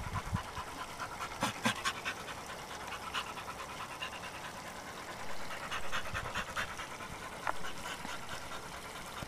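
Two American Bully dogs panting rapidly and rhythmically with open mouths while locked together in a copulatory tie after mating.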